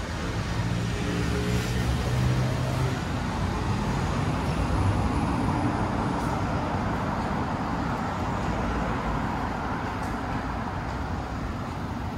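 Steady city road traffic: cars and buses passing, a continuous mix of tyre noise and engines. One vehicle's low engine hum stands out during the first few seconds.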